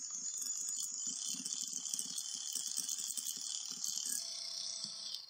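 Electric hand mixer running at steady speed, its wire beaters whipping chilled cream in a plastic bowl: an even motor whir with a light churning rattle. It stops abruptly at the end.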